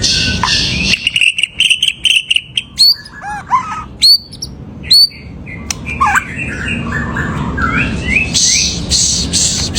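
White-rumped shama (murai batu) singing a varied song of sharp whistles, quick upward-sliding notes, clicks and buzzy rattling phrases, in the full-repertoire style that shama keepers call 'full isian'.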